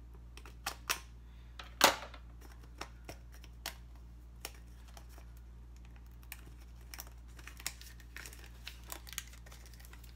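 Thin plastic wrapping being cut with scissors and peeled off a small plastic diffuser by hand: scattered crinkles and clicks, the loudest about two seconds in.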